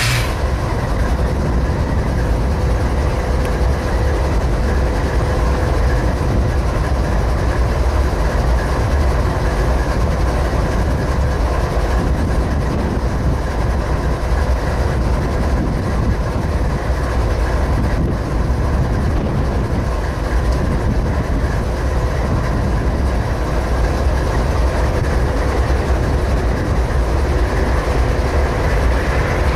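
Diesel freight locomotives running, a steady low rumble with a constant hum above it that holds level throughout.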